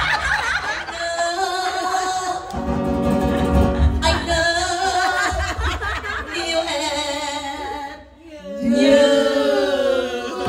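A voice singing long held, wavering notes over instrumental accompaniment, pausing briefly about eight seconds in before the next phrase.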